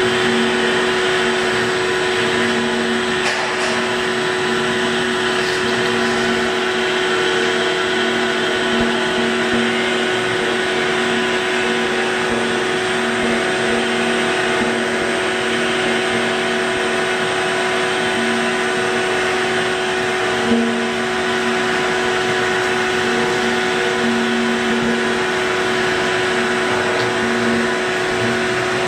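Steady motor drone with a low, unevenly pulsing hum, heard with the microphone inside an empty steel compressor tank; a single short knock about twenty seconds in.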